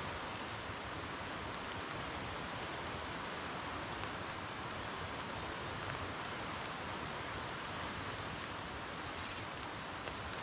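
Steady rushing of water, broken by four short, high-pitched chirping calls: one at the start, one about four seconds in, and two close together near the end.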